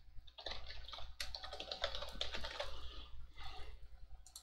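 Quick typing on a computer keyboard: a steady run of key clicks as a line of text is typed.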